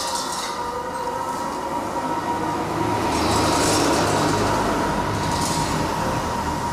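Diesel-driven stone crusher running: a steady heavy mechanical rumble with a constant hum. It swells about halfway through, with short rattling clatters about three and a half and five and a half seconds in.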